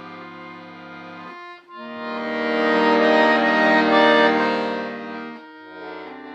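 Solo accordion playing slow held chords: one chord stops about a second and a half in, the next swells up loud and fades away, and a softer chord follows near the end.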